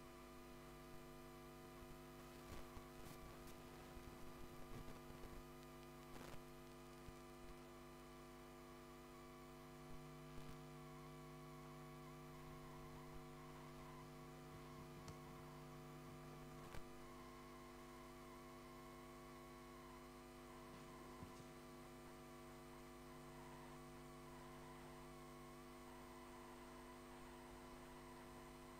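Near silence with a steady electrical mains hum, and a few faint brief sounds in the first several seconds.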